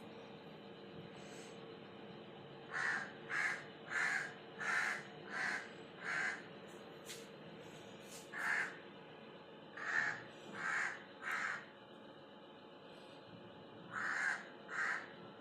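A crow cawing repeatedly in bouts of short, evenly spaced caws: a run of six, a single caw, then three, then two.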